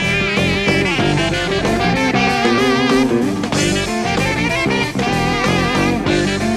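Rock band playing an instrumental live: a drum kit and electric bass and guitar under a lead line that wavers in pitch.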